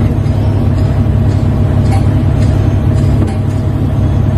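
Heavy engine running steadily, a low even drone, with a few faint knocks over it.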